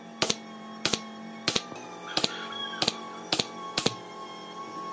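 Sharp taps or knocks about twice a second, with a short squeak a little after two seconds in, over soft background music with sustained tones.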